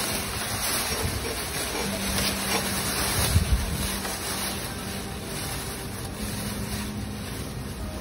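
Gusting wind buffeting the microphone while a tethered plastic bag billows and flaps in it, with two sharper buffets about three and a half seconds in.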